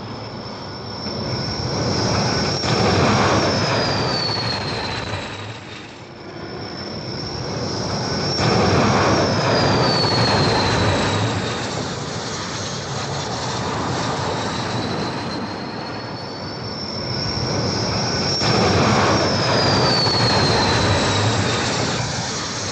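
Carrier jet aircraft landing one after another, three passes in all. Each brings a swelling rush of jet noise with a high whine that holds and then slides down in pitch.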